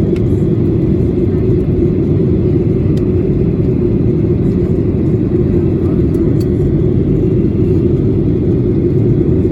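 Steady low roar of engine and airflow noise inside the cabin of a Boeing 737-800 in flight, constant in level throughout.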